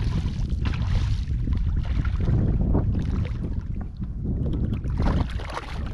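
Wind buffeting the microphone over water lapping and splashing against a kayak hull, with several brief splashes.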